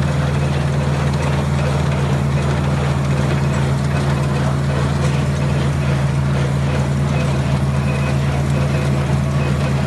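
John Deere 4020 tractor engine running steadily under load while it pulls and powers a New Holland hay baler off its PTO.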